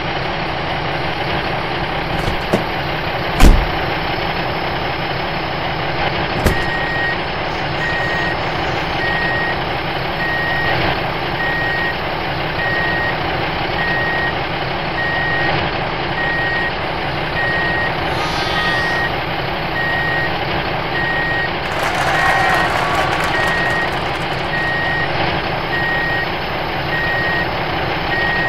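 Truck engine running steadily, with a reversing alarm beeping about once a second from about six seconds in. A single loud thump comes a few seconds in.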